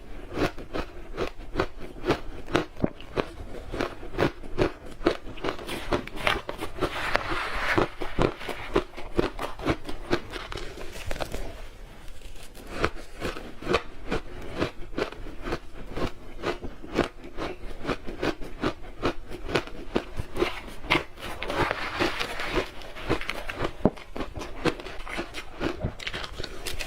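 Close-miked crunching and chewing of ice: a dense run of sharp, rapid crunches, with louder bursts of biting about a quarter of the way in and again near the end.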